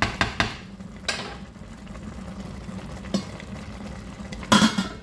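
Wooden spoon stirring rice in a large coated pot, with a few knocks and scrapes against the pot early on; about four and a half seconds in, a stainless steel lid clatters loudly as it is set on the pot. A steady low hum runs underneath.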